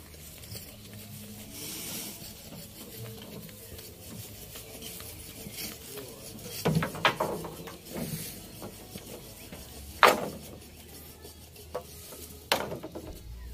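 A section of trembesi (rain tree) trunk being shoved up wooden log skids onto a truck: wood scraping and rubbing, with a few sharp knocks, the loudest about ten seconds in.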